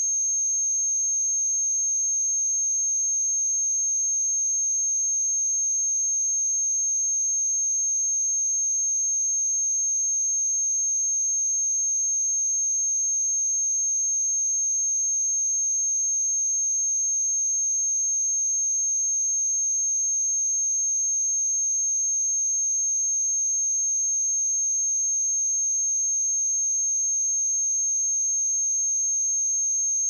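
A pure 6412 Hz sine-wave test tone: one steady high-pitched whistle that holds at constant pitch and loudness.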